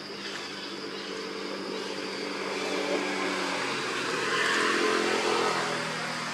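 A motor vehicle's engine passing by, growing louder to a peak about four to five seconds in and then fading.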